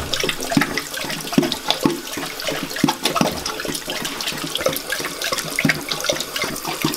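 Large dog lapping water straight from a running bathroom tap. Its tongue splashes in the stream with irregular wet strokes, a few a second, over the steady hiss of the tap running into the sink.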